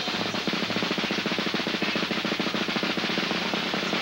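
A fast, even drum roll that keeps going without a break.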